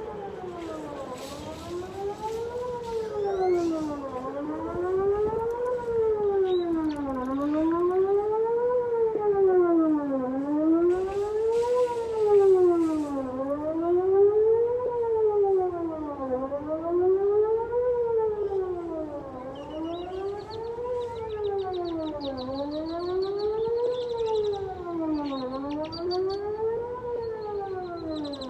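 Whelen WPS 2909 electronic outdoor warning siren sounding a wail, its pitch rising and falling evenly about once every three seconds, heard from about 2,000 ft away across an open field.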